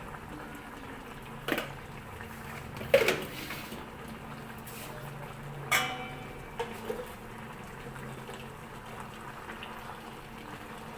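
Fish frying in oil, sizzling steadily, with a few sharp knocks of a utensil or pan.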